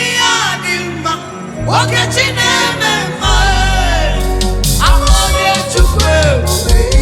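Live gospel praise music: a lead vocal sliding through long, bending phrases over a band, with bass and drums entering strongly about three seconds in.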